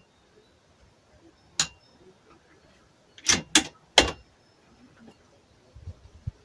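Sharp metallic clicks of a Bergara B14R bolt-action rifle's bolt being worked: a single click, then three quick clicks about two seconds later as the bolt is cycled to chamber the next round. A low rumble starts near the end.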